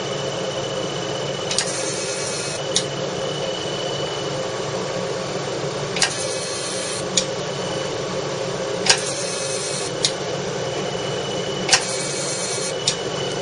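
CO2 fractional laser unit running with a steady fan-like hum and a faint high tone. Four times, a roughly one-second hiss starts and stops with a sharp click, as the laser fires a scan pass.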